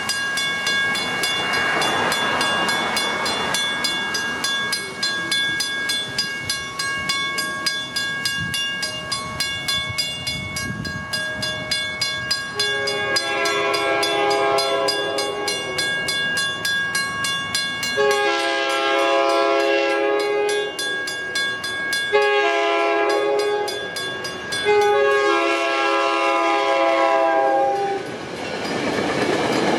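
A Western Cullen Hayes railroad crossing bell starts ringing rapidly as the crossing signals activate, and keeps ringing throughout. About halfway through, an MBTA commuter train's horn sounds four long blasts over the bell. Near the end the train's rolling noise swells as it reaches the crossing.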